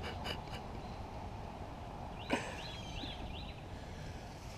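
Faint steady outdoor background with a sharp click just past halfway, followed by a few short bird chirps.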